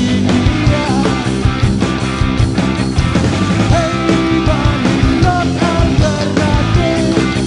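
Live rock band playing: electric guitars and a drum kit, with a singer over them.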